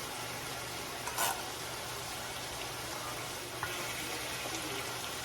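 Ground beef in tomato sauce sizzling steadily in a non-stick pan, with a brief louder burst about a second in and a faint click about three and a half seconds in.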